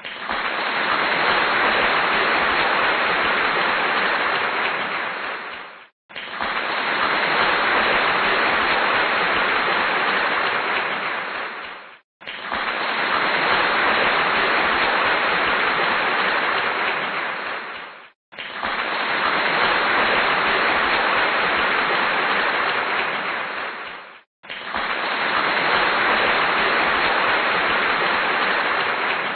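Applause laid over the pictures as a repeating clip: an even patter of many hands clapping, running in stretches of about six seconds that each fade out and restart after a short break.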